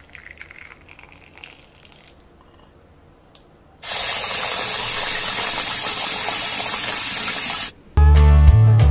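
Hot tea poured through a mesh strainer into a mug, a faint trickle. About four seconds in, a kitchen tap runs hard into the saucepan for about four seconds, a loud even rush of water, and then stops sharply.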